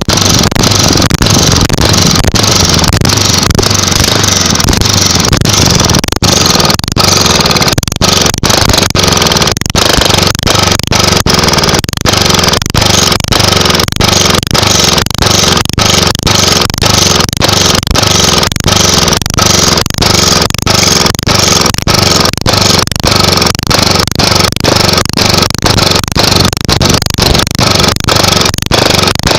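Webb four-stroke overhead-valve lawnmower engine running with no exhaust silencer fitted, loud and raw straight from the exhaust port. From about six seconds in, the running pulses with regular dips about twice a second.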